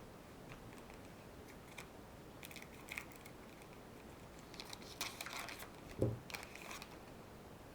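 Trading cards being handled and slid against one another, giving faint, scattered rustles and clicks, with a soft thump about six seconds in.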